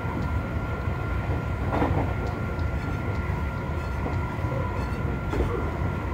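Seibu 40000 series electric train, with a Toshiba IGBT-VVVF inverter and permanent-magnet synchronous motors, running at steady speed, heard from inside the passenger car: a steady rumble of wheels on rail with a constant high whine. A couple of faint knocks sound over it.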